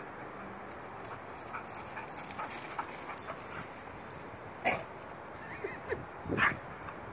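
A dog making a few short vocal sounds while carrying a ball in its mouth, the two loudest about two-thirds of the way through and near the end, with a few small ticks earlier.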